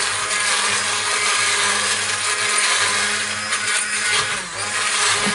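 Hand-held stick blender running steadily at full speed as it purees a soup.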